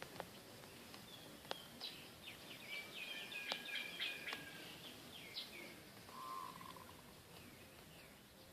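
Faint bird chirps and short trilling calls, busiest in the first few seconds, with a few sharp clicks among them.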